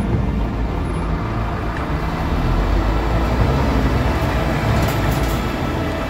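Scania truck's diesel engine running as the truck drives past at close range, a steady low rumble that grows a little louder in the middle as it goes by.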